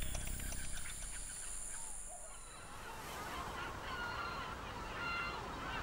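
A few short, faint bird calls in the second half, repeated single notes over low background hiss.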